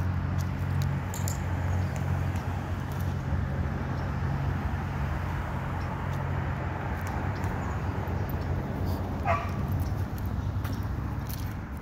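A dog gives one short, high, wavering whine about nine seconds in, over a steady low mechanical hum.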